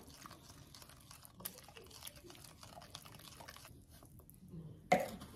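Wooden spoon stirring a runny icing-sugar glaze in a glass bowl: soft wet scraping with light clicks. Near the end, one sharper knock as a plastic scoop of icing sugar is added to the bowl.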